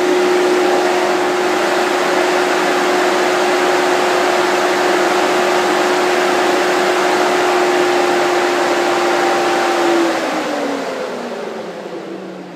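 BMW E65/E66 7 Series electric auxiliary engine-cooling fan running at full blast with a steady, very loud hum. About ten seconds in it is switched off and winds down, its pitch and loudness falling. The fan is stuck at full speed, a fault the owner is still tracing.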